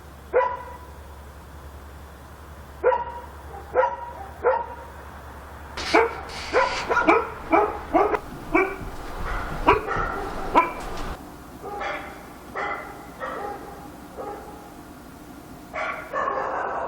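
A dog barking in short, irregular bouts: single barks, then a quick run of several barks about six seconds in, and softer barks after.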